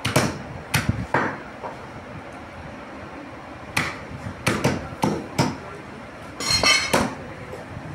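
Meat cleaver chopping through beef rib bones on a wooden stump chopping block: sharp chops, a few at the start, then a pause of about two seconds, then a quicker cluster. A brief ringing rattle comes about two-thirds of the way through.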